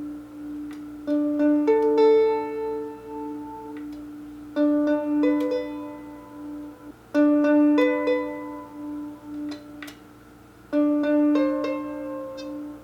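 Background music: plucked-string notes in short repeating phrases over a steady held low note.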